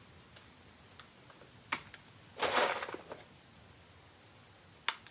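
A few faint sharp clicks and a short rustling burst about two and a half seconds in: handling noise.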